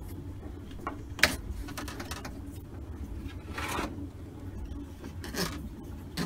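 A corrugated plastic washing-machine drain hose being handled, rubbing and scraping with a rasping, zipper-like sound, with one sharp click a little over a second in.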